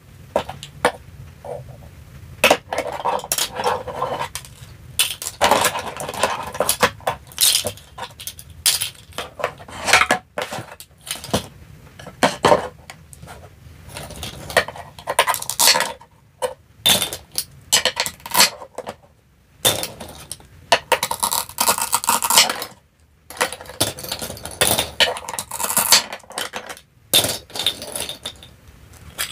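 Plastic toy food and toy kitchen utensils handled by hand: many small clicks and clacks as pieces knock together and are set into a plastic basket, with stretches of scraping and rustling as a plastic toy knife is worked against the toy fruit on a wooden cutting board.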